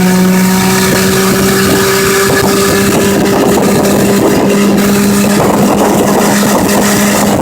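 8 hp Evinrude outboard motor running steadily at an even pitch.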